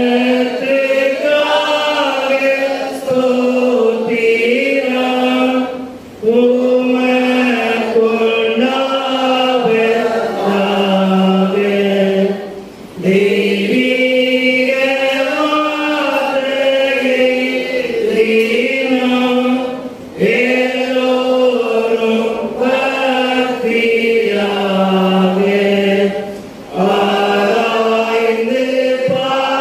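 A slow church hymn or chant sung by voices, in long held phrases with a short break for breath about every six to seven seconds.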